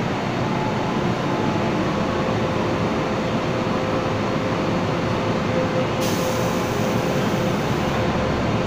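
MTR M-Train electric multiple unit standing at a station platform, its equipment running with a steady hum and a held steady tone from about two seconds in; the passenger doors slide shut in the second half.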